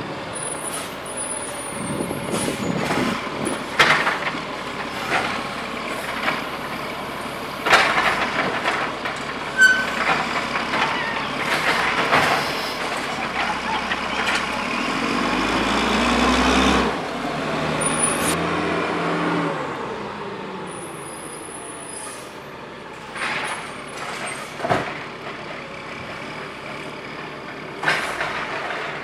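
Diesel engine of a Sterling Condor garbage truck with a Heil Formula 7000 automated side-loader body, revving up and back down as the hydraulic arm lifts and dumps a recycling cart. Sharp clanks come as the cart is shaken out and set back down, and short air-brake hisses follow.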